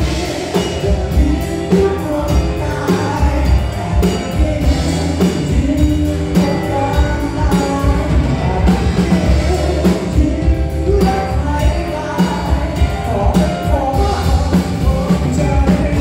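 Live rock band playing a song: a male lead vocal sung over electric guitar, bass guitar and drum kit, with a steady beat.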